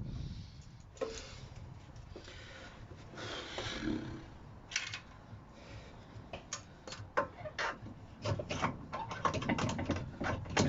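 Light clicks, knocks and scrapes of parts being handled and fitted by hand during rear suspension work. A few separate clicks and a scrape come first, then a quick run of clicks and rattles in the last four seconds.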